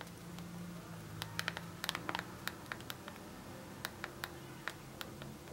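Faint, irregular clicking of a Nokia 105 candybar phone's keypad buttons pressed by a thumb to steer a game, over a faint low hum.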